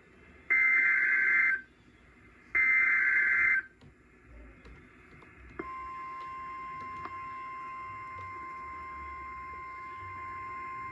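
Emergency Alert System end-of-message data bursts: two short, harsh warbling bursts of two-tone data, about a second each and a second apart, closing the marine warning. After a short pause, a steady single tone near 1 kHz starts and holds, the weather radio's 1050 Hz warning alert tone ahead of the next warning.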